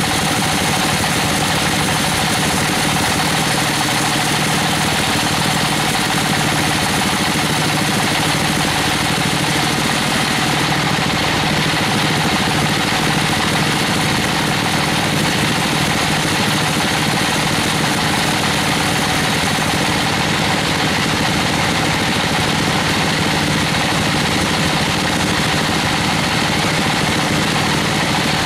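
Band sawmill running steadily, its blade cutting through a white siris (Albizia procera) log: a constant mechanical drone under a hiss. The high hiss grows stronger for about ten seconds in the middle, then eases.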